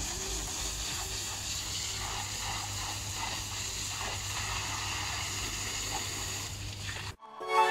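Steady hiss of water from a hose spraying onto a horse's legs and splashing on a wet concrete wash pad. It cuts off abruptly near the end, and music starts.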